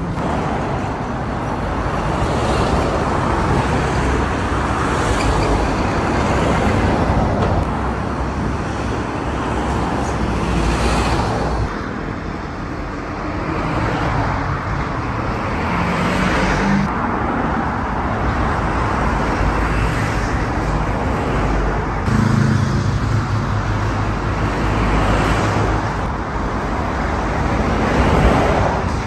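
Busy road traffic with trucks and cars passing close by. The low diesel engines of the medium and heavy trucks run under steady tyre and road noise, swelling as each truck goes past.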